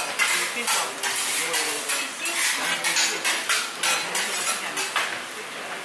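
Tableware clinking in a restaurant: chopsticks, ceramic bowls and plates knocking together in quick, irregular clicks, about two or three a second.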